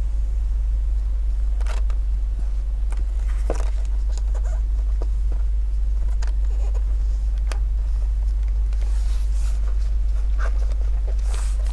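Gloved fingers pressing a rubber foot strip back into its groove on a laptop's bottom cover, making scattered faint rubbing and small clicks. A steady low hum runs underneath and is the loudest sound.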